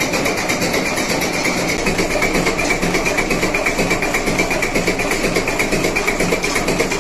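De Industrie four-cylinder diesel engine running steadily, its firing making an even, rapid beat.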